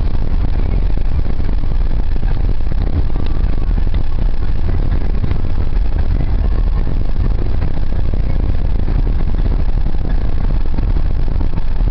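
Steady low rumble of a car heard from inside the cabin, engine and vehicle noise with no breaks or changes.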